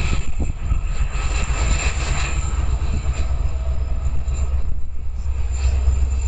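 Canadian National freight train running by with a steady low rumble.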